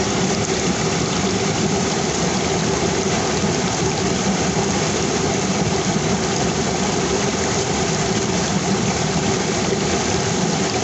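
River water rushing, a steady full hiss that does not change.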